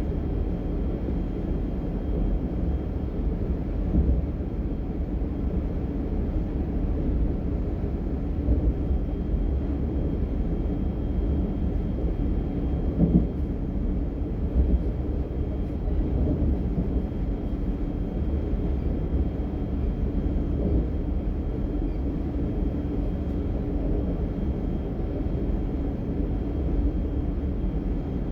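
DB Class 425 electric multiple unit running along the track, heard from inside the passenger car: a steady low rumble of wheels and running gear, with a few louder knocks here and there.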